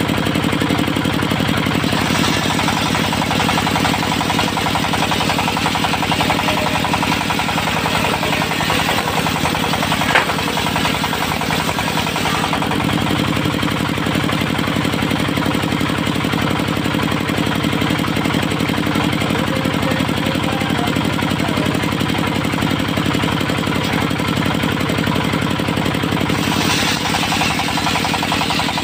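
Diesel-driven mobile circular sawmill running steadily through teak. The sound grows brighter and harsher about two seconds in, eases about twelve seconds in, and brightens again near the end, with one sharp knock about ten seconds in.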